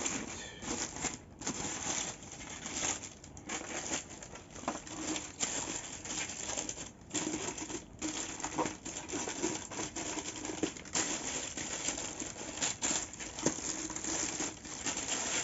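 Packaging wrap being handled and peeled away by hand, an irregular rustling that goes on without a break. It is being unwrapped carefully so as not to tear it.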